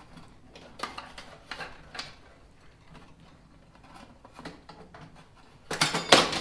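Clecos being worked out with Cleco pliers inside an aluminium aircraft tailcone: scattered metallic clicks and clatter, with a louder burst of rattling near the end.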